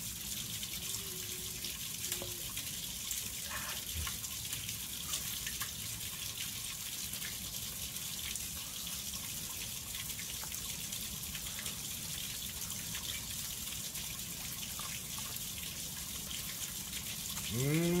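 Steady rush of running water. Near the end a man's voice gives a short hum that rises and falls.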